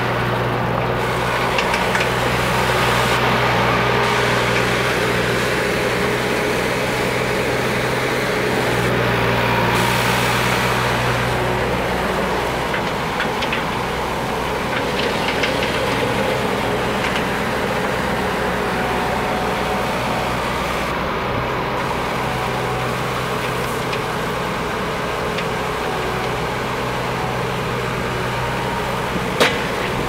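John Deere 250 skid steer's diesel engine running steadily as the machine drives and works its loader bucket, the engine note changing about twelve seconds in. A single sharp knock near the end.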